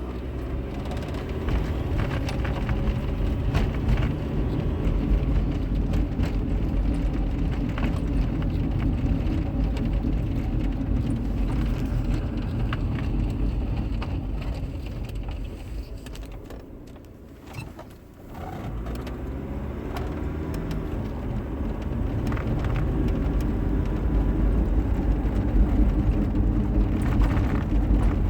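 A car being driven, its road and running noise carrying the grinding that the owner is trying to identify after replacing a wheel bearing and fitting a new rotor. The noise dies away briefly a little past the middle, then builds again.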